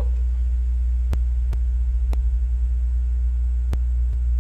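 Steady low electrical hum, the mains hum that runs under the whole recording, with a few sharp clicks scattered through it.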